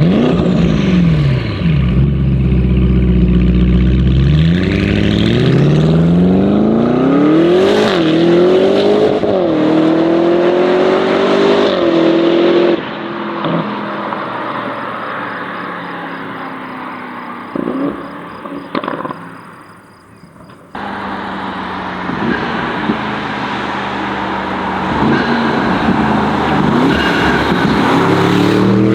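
Tuned Audi RS6 C8's twin-turbo V8 with an aftermarket exhaust pulling hard, its revs climbing through several upshifts. About halfway in the throttle closes and the revs fall, with a few sharp exhaust cracks. After a brief quieter spell the engine comes back at steady revs and climbs again near the end.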